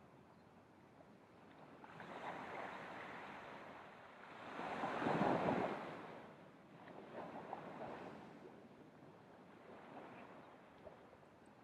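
Ocean surf breaking and washing up the beach in a series of swells, the loudest about five seconds in, with fainter ones before and after.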